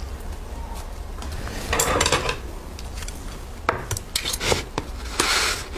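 Soft, sticky rice cakes handled on a metal plate: a rustly burst of pulling and rubbing about two seconds in, then a string of sharp clicks and taps against the plate, and another rustly burst near the end.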